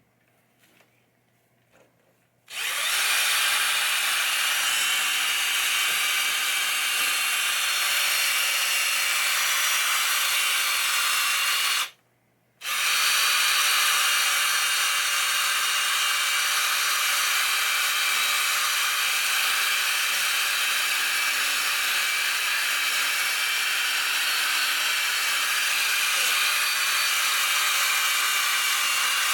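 Electric polisher spinning a foam pad with Novus polish on a pinball playfield, a loud steady motor whine. It starts about two and a half seconds in, stops for half a second about twelve seconds in, then runs on.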